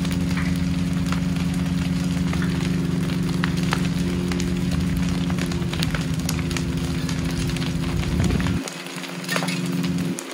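A building fire crackling, with many short sharp cracks, over a steady low engine hum that cuts out about eight and a half seconds in.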